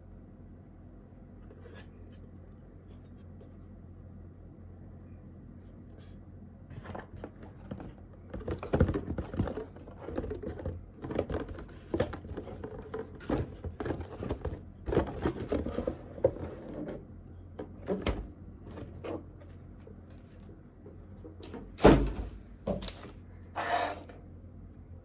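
Handling noises of unpacking: irregular rustles, clicks and knocks as packaging and the unit are moved about, starting about six seconds in and ending near the end, with one louder thump about two-thirds of the way through.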